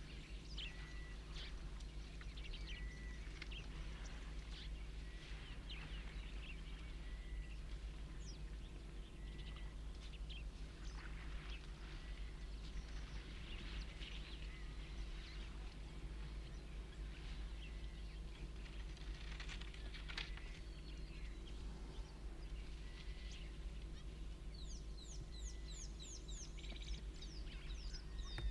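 Wild birds calling in the bush: a short whistled note repeated about every two seconds among scattered chirps, with a run of quick falling chirps near the end, over a steady low hum.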